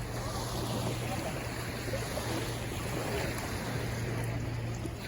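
Sea waves washing at the shore with wind on the microphone, over a steady low hum.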